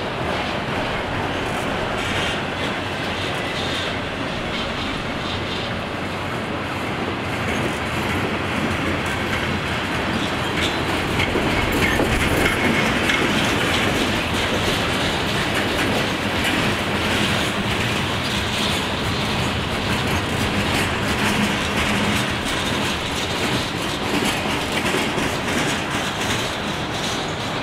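Long freight train of autorack and covered hopper cars rolling past: steel wheels clicking over rail joints over a steady rumble, a little louder about halfway through.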